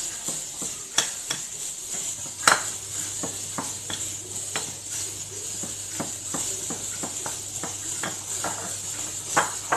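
A metal spoon scraping and clinking against a pot or bowl while thick lemon-and-cornstarch cream is stirred and scooped. There is a sharper clink about two and a half seconds in and light ticks every half second or so after it, over a steady high hiss.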